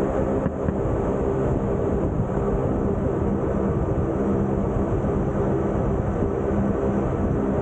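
Jungfrau rack-railway (cog) train running steadily: a continuous rumble with a steady hum.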